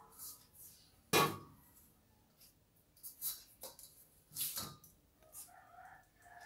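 A stainless steel bowl set down on a stainless steel counter with one sharp clank about a second in, then a few quieter knocks and taps as a mesh flour sieve is handled to sift the flour.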